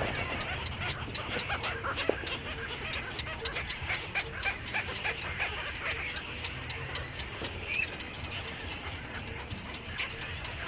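Many birds chirping together, a dense chatter of short, overlapping chirps.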